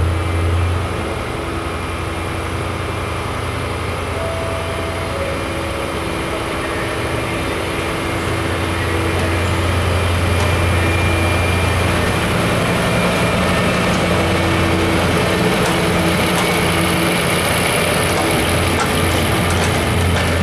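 Class 73/9 electro-diesel locomotive running on its MTU V8 diesel engine as it hauls a train slowly past. A low, steady engine hum grows louder about halfway through as the locomotive draws near.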